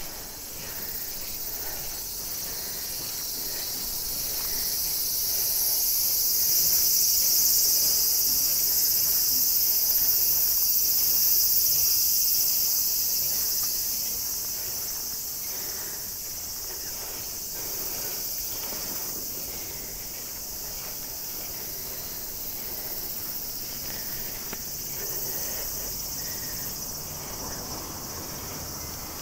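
Cicadas in a summer chorus, a steady high buzzing drone that grows loudest about six to twelve seconds in and then settles to a lower level.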